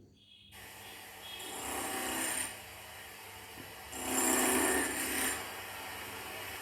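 A rough, rasping, grinding noise with no clear pitch, swelling loudly twice for about a second each time, then running on steadily at a lower level.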